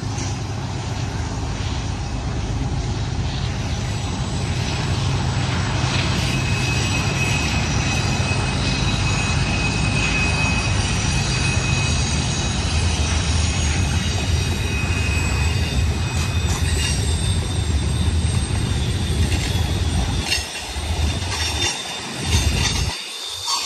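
Double-stack container cars of a BNSF freight train rolling past: a steady rumble of steel wheels on rail, with thin high wheel squeal coming and going through the middle. The low rumble thins and breaks up near the end.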